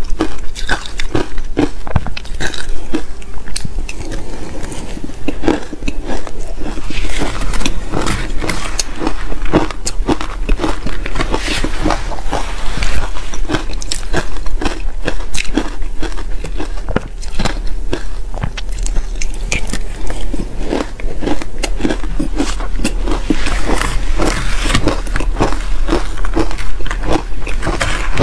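Close-miked biting and chewing of soft, powdery shaved ice coated in matcha powder: a quick, unbroken run of small crisp crunches, with a steady low hum underneath.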